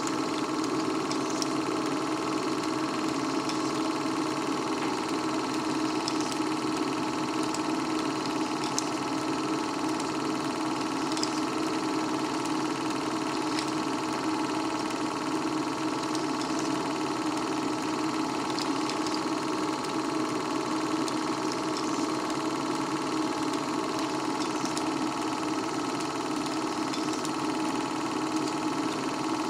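Film projector running steadily: a continuous mechanical whir and hum from its motor and film transport, with no change in pace.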